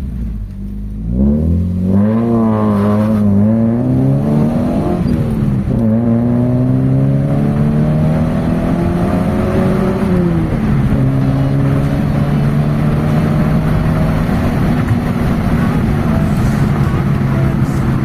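Toyota Corolla GLI's 4A-FE four-cylinder engine accelerating on a test drive, climbing in pitch through the gears with a shift about five seconds in and another about ten seconds in, then pulling steadily. It runs solid with no misfire now that the fuel pump has been replaced.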